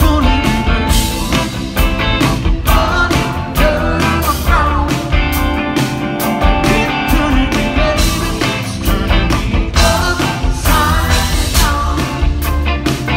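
Live band playing a song: electric guitar, bass and drums at a steady beat, with a man singing into the microphone.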